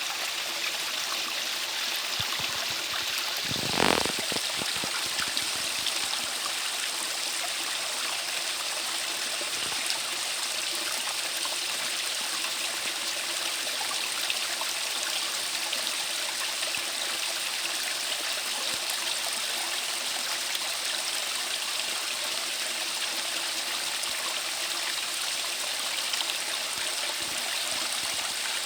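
Valley stream flowing steadily, an even rushing and trickling of water, with one brief louder whoosh about four seconds in.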